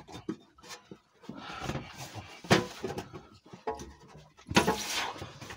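Strained breathing and effort noises while a rubber exhaust hanger is forced off the rear silencer, with scattered short knocks and rubbing of metal and rubber. A louder rush of noise comes about four and a half seconds in.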